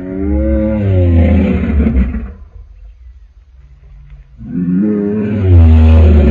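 Designed creature roars for the fictional hybrid dinosaur Chimerasaurus Rex: two deep roars with a heavy low rumble beneath. The first fades about two and a half seconds in, a quieter rumble carries on, and the second, louder roar starts about four and a half seconds in.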